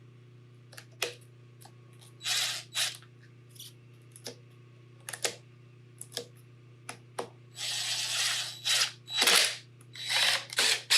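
Screws being driven into a Onewheel during reassembly: scattered sharp clicks and short rasping bursts of tool noise, coming thicker and closer together in the last few seconds, over a steady low hum.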